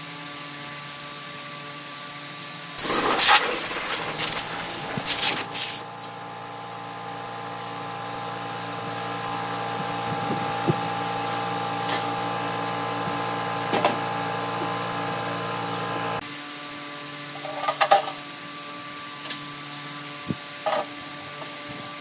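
Wood lathe in use: about three seconds in, a few seconds of loud scraping and knocking on the wooden blank, then a steady motor hum that cuts off suddenly after about sixteen seconds. A few light knocks and clicks follow as the blank is handled.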